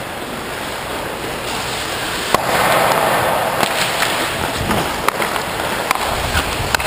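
Ice hockey skates scraping and gliding on the ice with a steady rushing noise that swells about two and a half seconds in, broken by sharp clacks of sticks and puck: one loud clack at the swell and several more in the second half.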